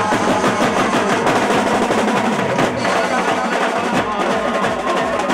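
Music carried by fast, dense drumming, a rapid run of drum strokes with no clear voice over it.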